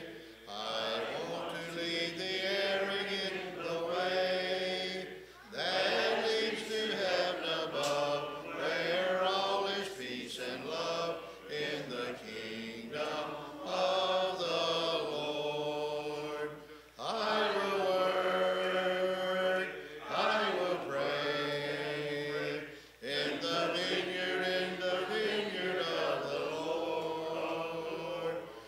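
A church congregation singing a hymn together, unaccompanied, in long sustained lines with brief breaks between phrases.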